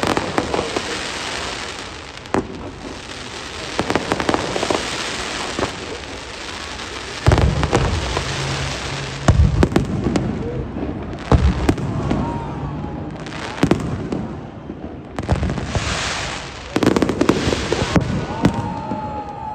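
Fireworks display: aerial shells bursting one after another in sharp booms, with dense crackling between the bursts.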